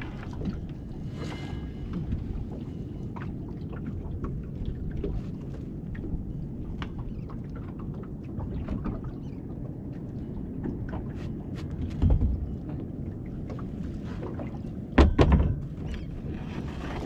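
Wind and water lapping around a small open fishing boat, with scattered clicks and knocks as rope and a small grappling anchor are handled at the gunwale. A couple of heavier thumps come near the end.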